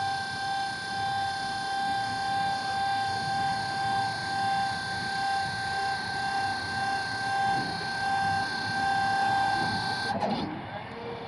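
Electric forklift motor giving a steady high whine with many overtones, which stops abruptly about ten seconds in; a lower, quieter hum carries on after it.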